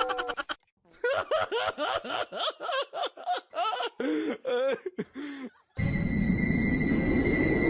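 A person laughing in short, repeated bursts. From about six seconds in there is a steady hiss with a thin high-pitched whine.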